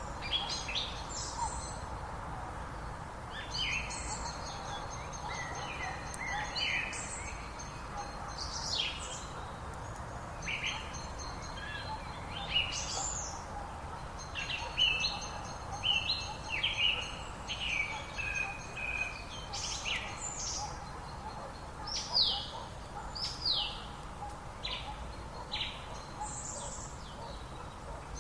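Several songbirds singing and calling, with many short chirps and whistled phrases overlapping, over the steady rush of flowing river water.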